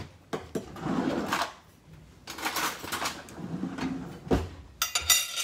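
Kitchen drawer being opened and rummaged in for cutlery: knocks and rustling, a sharp knock about four seconds in, then a bright metallic clink of cutlery near the end.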